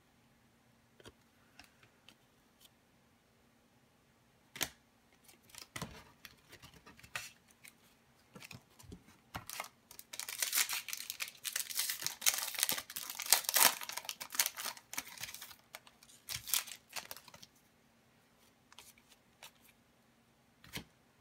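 Foil wrapper of a hockey card pack being torn open, a crinkling, tearing rustle lasting about six seconds midway. Before it come scattered light ticks of cards being handled, and a few more follow.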